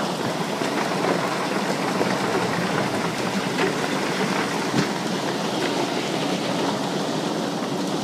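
Storm wind driving heavy rain: a steady, dense rush of wind and pelting rain with scattered sharp ticks, and one louder click about five seconds in.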